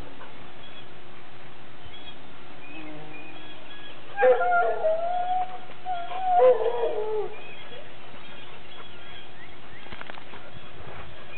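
A dog whining twice during rough play, each a drawn-out note of about a second, the second wavering and falling away at its end. Faint bird chirps run underneath.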